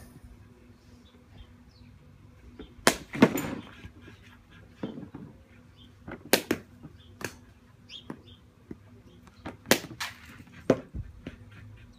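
Sharp knocks of a cricket bat striking tennis balls, about six of them spaced a second or more apart, two coming close together about three seconds in with a longer rattle after them.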